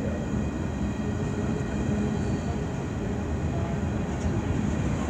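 CN freight train rolling past, its covered hopper cars and tank cars making a steady rumble on the rails. A faint steady high whine runs over it.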